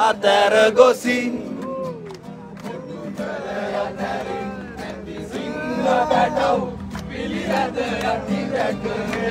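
A crowd of many voices singing and chanting together, the voices overlapping over a steady low note.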